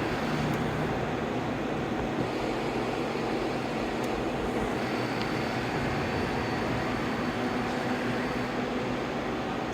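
Steady mechanical hum of a CNC vertical machining center running under power, an even noise with a few faint steady tones.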